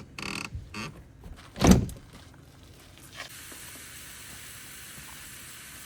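A loud thump, then from about three seconds in a steady sizzle of hot dogs starting to fry in a hot pan.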